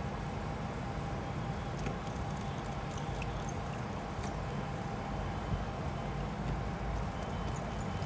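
Steady low background rumble with a faint steady whine. Over it come scattered faint small clicks as plastic parts of an opened smartphone are handled and pressed into place.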